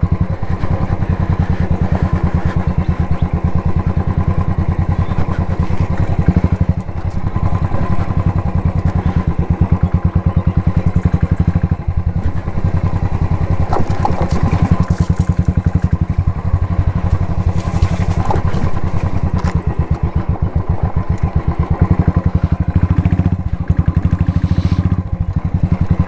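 Royal Enfield Thunderbird 350X single-cylinder engine running at low speed with a steady, rhythmic exhaust beat while the bike is ridden along a rough dirt trail. The sound dips briefly twice, about seven and twelve seconds in.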